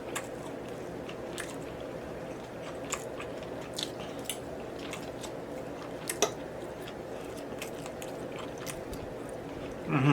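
A person chewing food close to the microphone, with scattered short wet mouth clicks and smacks over a steady background noise; the sharpest smack comes about six seconds in.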